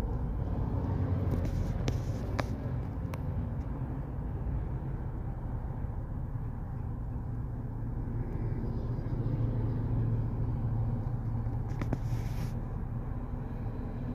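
Steady low rumble of road traffic and an idling vehicle heard from inside a car cabin, with cars crossing in front. A few light clicks come about two to three seconds in, and a brief hiss comes near the end.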